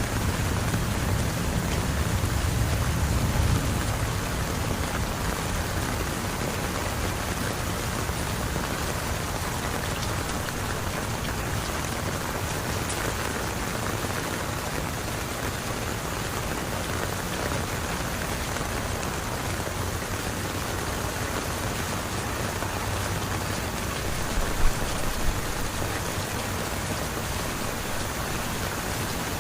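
Heavy rain falling steadily, a dense even hiss of drops on surfaces. A low rumble sits under it during the first few seconds, and two short sharp knocks stand out about 25 seconds in.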